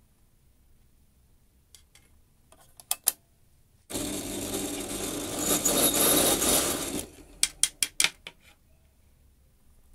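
Perforated galvanised steel strap clinking and clicking as it is handled on a wooden table. A harsh, noisy sound starts abruptly about four seconds in, lasts about three seconds, grows louder and stops suddenly, followed by a quick run of four or five sharp clicks.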